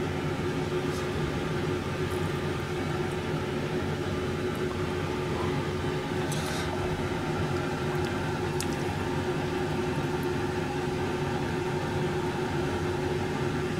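A steady machine hum with a constant low tone, with a few faint light clicks of chopsticks against a metal mesh strainer as noodles are lifted out.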